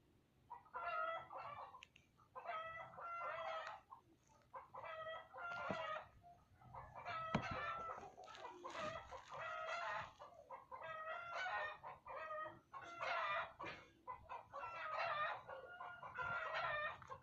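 Repeated drawn-out animal calls, each about a second long, following one another with short gaps.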